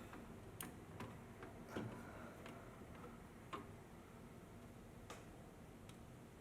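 Near-quiet room with about six light, irregular clicks and taps, the loudest a little under two seconds in, as of small hard parts or packaging being handled.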